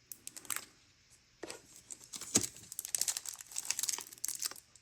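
Packaging from a Pokémon card Elite Trainer Box crinkling and rustling as it is handled and unpacked, with scattered small clicks. The handling gets busier from about a second and a half in.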